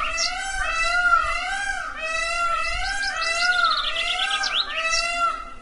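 Bird calls: a warbling pitched call that rises and falls about two to three times a second, with higher chirps and quick trills over it.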